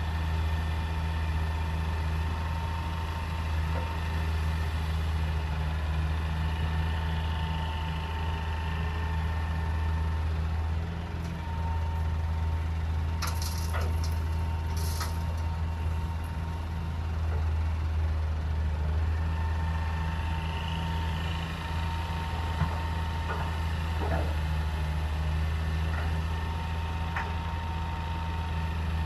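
Diesel engine of a Hitachi EX200 excavator running steadily as it works, with a faint steady whine above it and two brief high hisses about halfway through.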